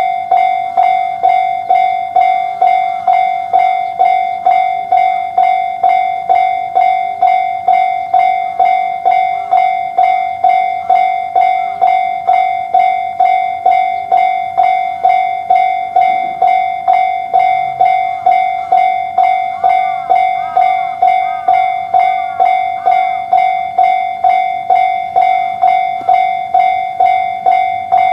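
Japanese railway level-crossing alarm ringing its electronic "kan-kan" bell at about two strikes a second, steady and loud.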